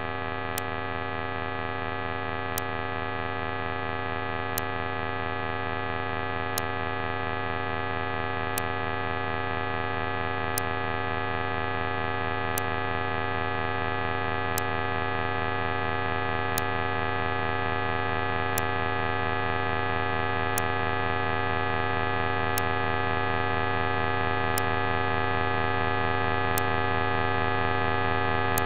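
Electronic drone of many steady held tones, with a short sharp tick every two seconds, slowly growing louder.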